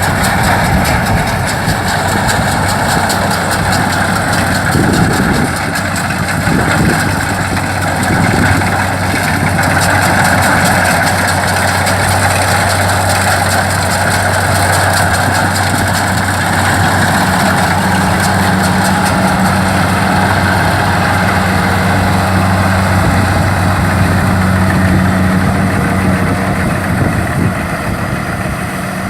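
Kubota DC-70 rice combine harvester's diesel engine running steadily with a loud mechanical din. There is a constant low hum, and a second, higher hum joins about two-thirds of the way through.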